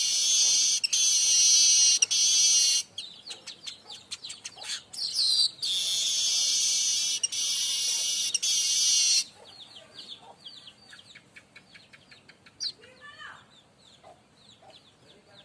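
Streaked weaver (manyar kembang) singing: two long, loud, buzzy reels, one in the first three seconds and one from about six to nine seconds in, with quick short chirps between and after them.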